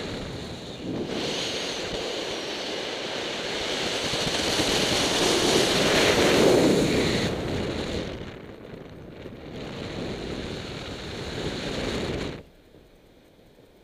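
Wind rushing over the microphone of a paraglider pilot's camera in flight, building to its loudest about six or seven seconds in, easing off, then dropping away abruptly near the end.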